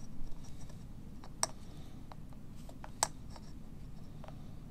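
Small, sharp clicks and taps of a metal multitool and rod handled against a 3D-printed plastic part, two louder ones about a second and a half in and about three seconds in, over a faint steady hum.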